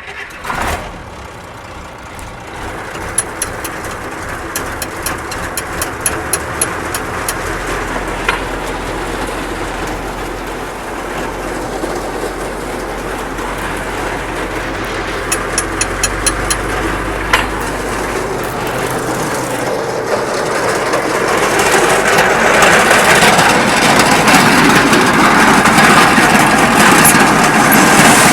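A farm engine just started and running at low throttle with a rhythmic ticking of machinery, gradually speeding up; about two-thirds of the way in it grows clearly louder, with a rushing noise on top, as the machinery comes up to speed.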